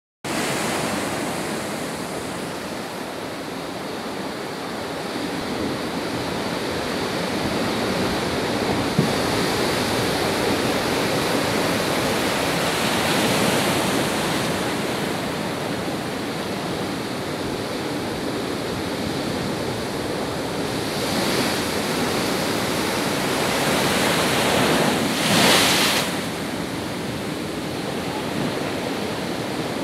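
Heavy storm surf: big waves breaking and crashing against a concrete pier, a continuous rush of churning water that swells as larger waves break, loudest about twenty-five seconds in.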